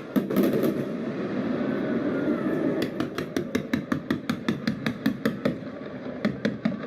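Fireworks going off close by: a dense crackling wash after a burst, then from about three seconds in a rapid, even string of sharp pops, about five or six a second.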